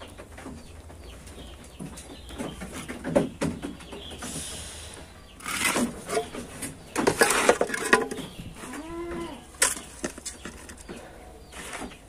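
Handfuls of damp goat feed mash being scooped and dropped into a plastic trough, rustling and knocking at irregular moments. A goat gives one short bleat about nine seconds in.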